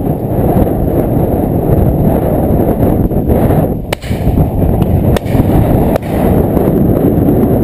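Wind buffeting the camera microphone, a loud, steady low rumble, with two sharp cracks about four and five seconds in.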